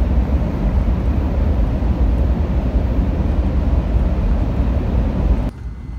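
Steady low rumble of a moving vehicle heard from inside, with a constant noise haze over it. It cuts off abruptly about five and a half seconds in.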